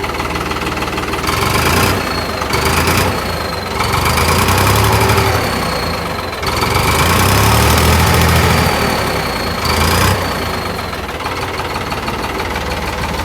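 Farmtrac tractor's diesel engine idling and revved up about five times, the longest run near the middle. A high whistle from the add-on turbo whistle rises with each rev and falls away as the engine drops back to idle.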